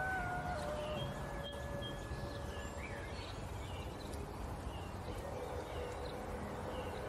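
Outdoor ambience: a steady low rumble, with small birds chirping over and over and a faint held tone that steps up, then down, near the start.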